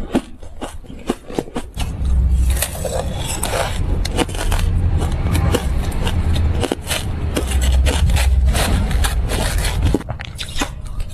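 Crushed ice crunching, in dense sharp crackles, at the start and again near the end. In between, a louder stretch of a spoon scraping and scooping through crushed ice in a plastic tub, with a heavy low rumble.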